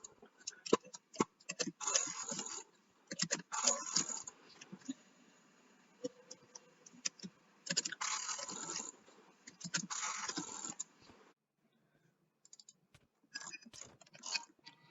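Irregular sharp clicks, some in quick runs, mixed with short hissy scraping bursts lasting about half a second to a second. The clicks stop for a moment a little past the middle, then pick up again faintly near the end.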